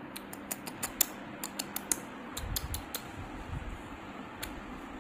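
A handheld phone being handled and moved: a run of small irregular clicks, several a second, with a low rumble of handling noise about halfway through.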